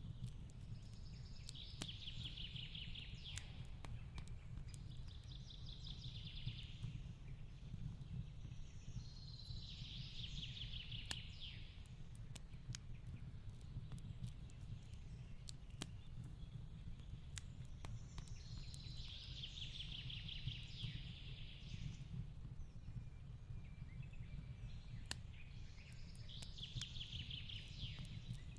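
Fireplace crackling, with scattered sharp pops over a steady low rumble. A songbird repeats a short trilled phrase about five times, a second or two each.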